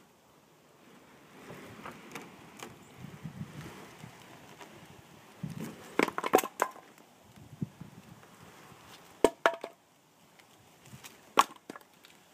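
Scraping and rustling as the load shifts, then split firewood pieces tumbling off a pickup tailgate and knocking on asphalt: a cluster of sharp knocks about halfway through, more a few seconds later, and one near the end.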